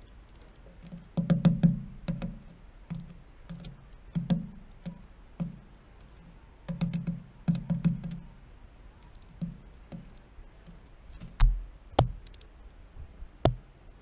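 A bird pecking at seeds on a wooden board close to the microphone: irregular clusters of dull taps and clicks, with a few sharper knocks near the end.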